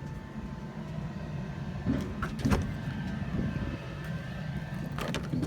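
Steady low rumble of the truck's 6.4 Power Stroke diesel engine idling, with a few short knocks about two seconds in and again near the end.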